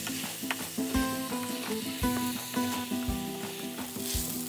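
Raw rice being stirred with a wooden spoon in a hot steel pot, the grains sizzling and scraping as they fry in the meat's fat before water is added. Background music with a soft beat about once a second plays over it.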